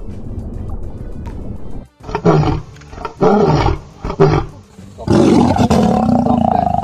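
Lion roaring in a series of calls starting about two seconds in: three short roars, then one long roar near the end. Before that, a low rumbling noise with music.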